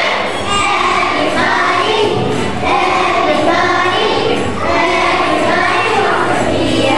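A chorus of children singing together over musical accompaniment.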